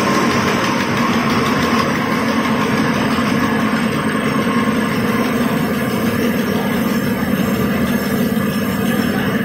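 Corn-puff snack extruder running steadily, a loud constant machine drone with a low hum and a faint steady whine.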